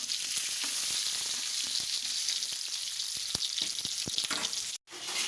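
Garlic, onion and green chillies sizzling in a little hot oil in a pan: a steady frying hiss with a few light clicks of stirring. The sound cuts out suddenly for a moment near the end.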